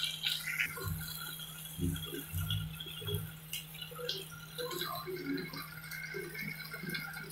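A spatula stirring frying onions, tomatoes and green chillies in a pan, in irregular scrapes and knocks about once a second over a steady low hum.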